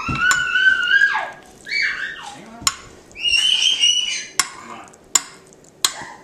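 A child's high-pitched voice calling out in excited, gliding squeals, three times. Between the calls come a few sharp clicks of a spoon against a baking dish as the filling is smoothed.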